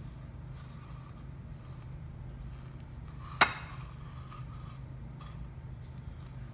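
Hands pressing and patting chicken strips into dry panko breadcrumbs on a ceramic dish, a soft crumbly rustling. About halfway through there is a single sharp knock with a short ring, the loudest sound.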